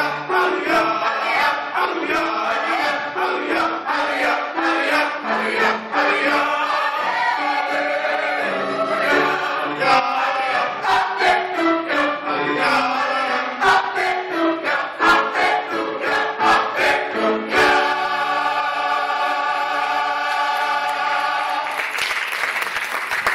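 Gospel choir singing in full harmony over sharp rhythmic beats, then holding a long final chord about eighteen seconds in. Applause starts near the end as the chord dies away.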